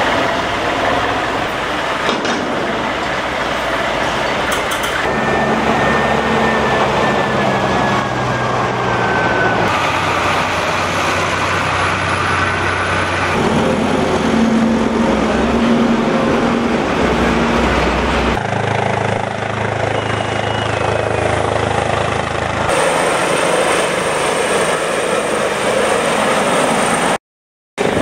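Steady engine and machinery noise with a low hum, changing abruptly several times as separate recordings are cut together, with a brief dropout near the end.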